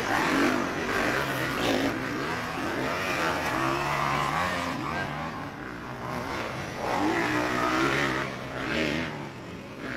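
Motocross dirt bike engines revving hard, their pitch rising and falling as the bikes race and jump around a dirt track, loudest just after the start and again about seven seconds in.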